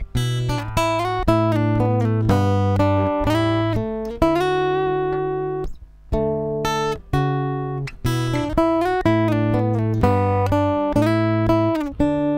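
Playback of an unedited, uncompressed guitar recording: picked notes and chords that ring on, with uneven loudness. Some passages are quiet and some strokes are sharply louder, the uneven dynamics a compressor is meant to even out.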